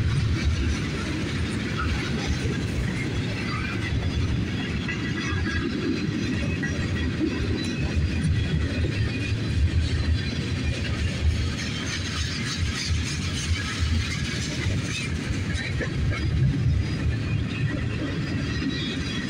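Freight cars of a mixed manifest train (tank cars, a flatcar and covered hoppers) rolling past close by: a steady, mostly low rumble of steel wheels on the rails, with scattered rattling from the cars.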